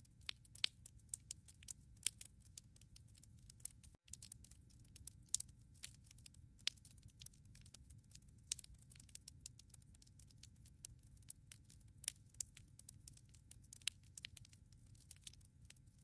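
Wood fire in a fireplace crackling: irregular sharp snaps and pops over a low steady rumble of the flames. The sound cuts out for an instant about four seconds in.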